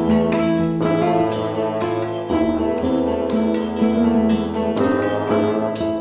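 Instrumental background music led by plucked guitar, with quick repeated notes over sustained chords.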